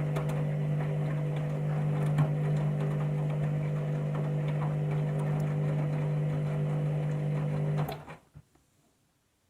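Candy washing machine running in the heating phase of a 60-degree wash: a steady motor hum with scattered light clicks from the drum, which cuts off suddenly about eight seconds in.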